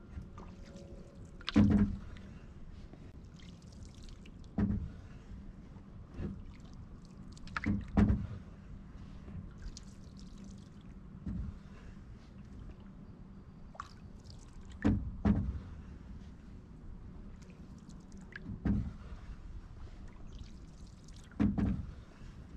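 Canoe being paddled: a short, sharp paddle sound every two to three seconds, about nine in all, over a steady low rumble.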